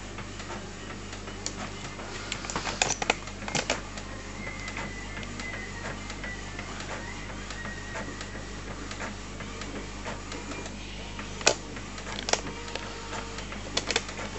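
Epson BX300F inkjet printer running a print job: a steady mechanical whir from the print head and paper feed, with several sharp clicks as the page advances and feeds out.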